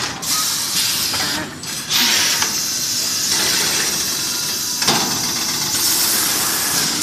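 Vacuum forming machine running with loud hissing air from its pneumatic and vacuum system, steady for long stretches with a brief break about a second and a half in.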